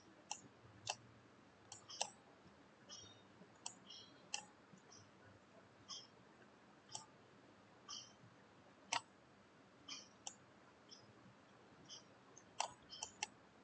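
Computer mouse button clicking, single sharp clicks about once a second with a quick cluster of several near the end, over faint room tone.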